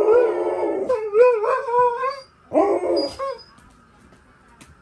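Alaskan malamute howling: a long howl with a wavering pitch, then a second, shorter howl about two and a half seconds in.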